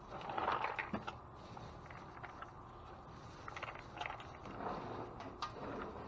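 Dry dog kibble rattling and shifting as a gloved hand rakes through it in a plastic crate, with plastic-bag rustling: faint scattered clicks and rustles, busiest about half a second in and again around four to five seconds in.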